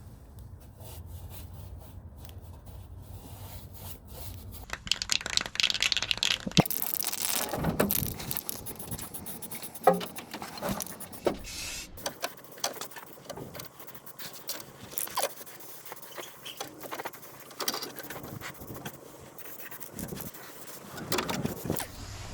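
Metal parts and hand tools scraping, clicking and clanking in irregular bursts, with a couple of sharp knocks. A low steady hum sits under the first few seconds.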